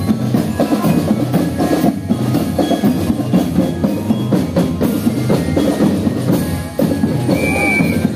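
A marching drum corps playing a steady parade beat on snare and bass drums, with a brief high held tone near the end.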